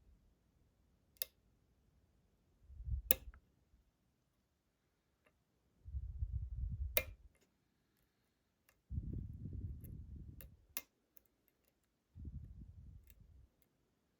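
Pin-tumbler Euro cylinder lock being picked: a few sharp metallic clicks spaced seconds apart as pins move and set under the pick. Between them come four stretches of low rumbling handling noise, each a second or two long.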